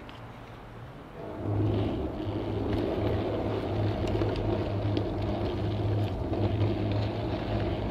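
Garden-railway model locomotive starting off about a second in, then running steadily along the track with a low mechanical hum and a few light clicks.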